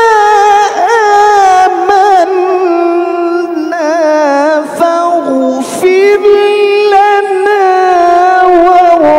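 A man's solo voice reciting the Quran in the melodic mujawwad style, drawing out one long, high line in fast wavering ornaments that step slowly down in pitch, with a few brief breaks.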